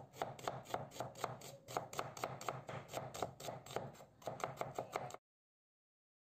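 Chef's knife chopping a red onion on a wooden cutting board: quick, even knocks of the blade against the board, about four a second, stopping abruptly about five seconds in.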